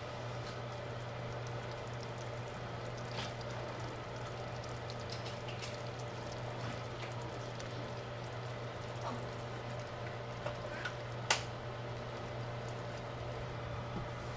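Thick reduced glaze pouring from a pan through a metal mesh strainer into a bowl, with a few light clicks of utensils against the bowl, the sharpest about eleven seconds in, over a steady low hum.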